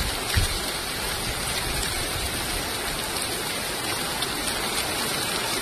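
Heavy rain pouring down in a steady, dense hiss, with one brief low thump about half a second in.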